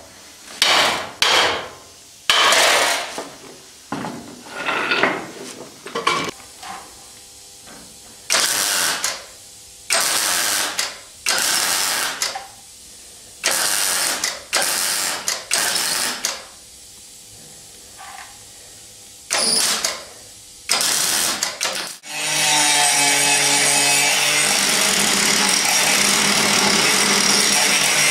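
Semi-automatic (MIG) welder tack- and stitch-welding a patch onto a car's sill, in a string of short crackling bursts with pauses between them. About 22 seconds in, an angle grinder starts and runs steadily, grinding down the welds.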